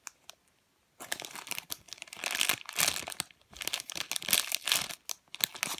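Packaging crinkling in irregular bursts as it is handled and opened, starting about a second in, with a short pause midway.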